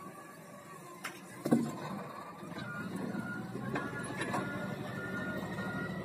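Wheel loader with log grapple forks running, with a heavy thump about a second and a half in as the log is let down. The engine then picks up and a reversing alarm beeps steadily at an even pace as the loader backs away.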